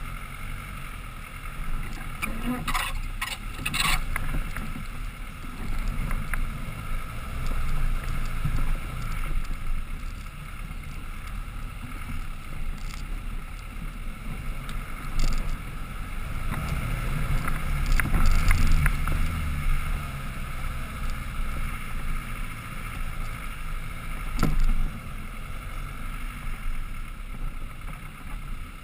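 Land Rover Defender 110 crawling up a rough dirt and rock trail, heard from its roof: a low engine rumble that swells and eases, with wind on the microphone. Sharp knocks and rattles from the body and suspension come about three to four seconds in, around eighteen seconds and again about twenty-four seconds in.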